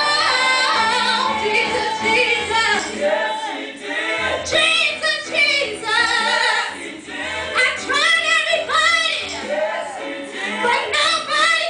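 A woman singing a gospel song solo into a handheld microphone, amplified through a PA speaker, with wavering vibrato on long held notes and short breaths between phrases.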